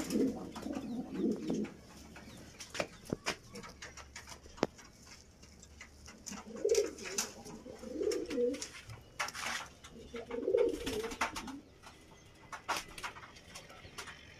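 Domestic pigeons cooing: four low warbling phrases, one at the start and three close together in the second half, with scattered clicks and rustles between them.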